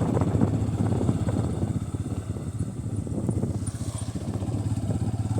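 Bajaj Pulsar N160's single-cylinder engine running steadily as the motorcycle is ridden.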